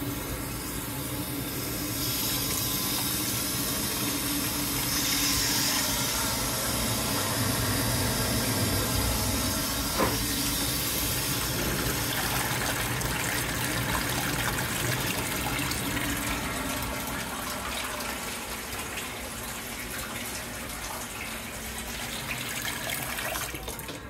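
Kitchen mixer tap running a steady stream of water into a stainless steel sink, the flow opening up about two seconds in, with a single click about ten seconds in.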